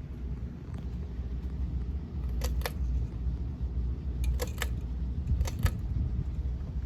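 A 42-inch Gulf Coast Mini Breeze ceiling fan running, heard as a steady low rumble of moving air. Three quick double clicks come in the middle of the stretch, about a second apart.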